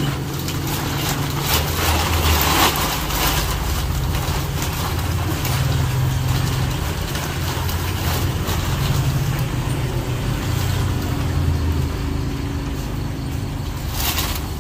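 A large thin plastic bag rustling and crinkling as its top is twisted and tied closed, the crinkling thickest early on and again near the end. A steady low rumble runs underneath.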